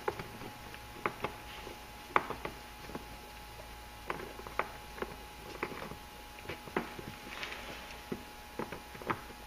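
Irregular light metallic clicks and knocks of a front disc brake caliper being worked by hand over its pads onto the bracket, a snug fit.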